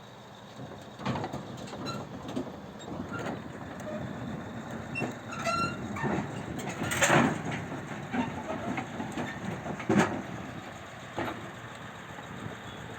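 Bulldozer moving on its steel crawler tracks: irregular metal clanks and knocks over a steady low diesel rumble, with a brief squeal about five seconds in. The loudest knocks come about seven and ten seconds in.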